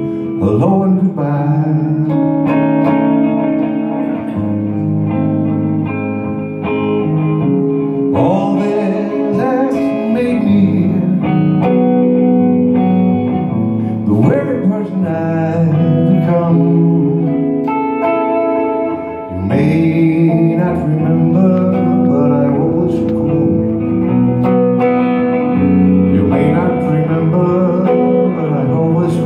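Amplified electric guitar playing a song's instrumental passage live, with sustained notes and changing chords.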